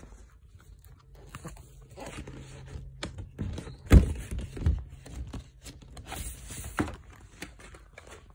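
Plastic and cardboard packaging of a record album being handled: rustling and crinkling with scattered clicks. There is a loud thump about four seconds in, then a few softer knocks.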